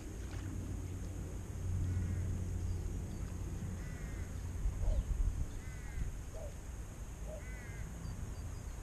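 A bird calling, a short call repeated about every two seconds, over a steady low rumble.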